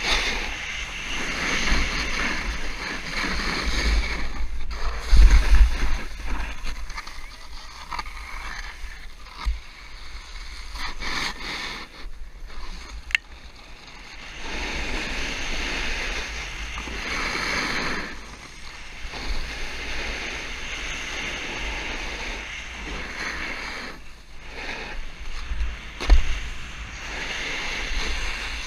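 Snowboard sliding and carving over snow: a scraping hiss that swells and fades with each turn. Wind buffets the helmet camera's microphone throughout, with heavier low thumps about five seconds in and near the end.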